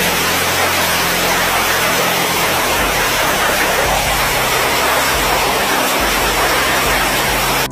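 A hailstorm: dense hail and rain falling hard, a loud, steady hiss in which no single strikes stand out.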